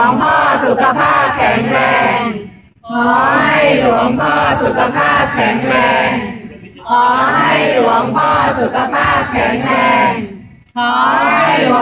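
A large crowd chanting a short phrase in unison, over and over, with a brief pause about every four seconds.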